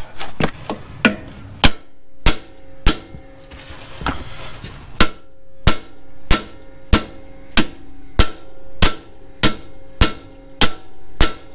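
Steady hammer blows on the stuck rear control arm bolt of a Nissan Pathfinder's axle, about one and a half strikes a second, each a sharp metallic impact that leaves the metal ringing, after a few light clinks at the start. The seized bolt will not budge.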